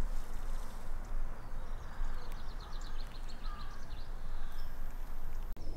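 A songbird sings a quick run of repeated high notes about two seconds in, over a steady low rumble.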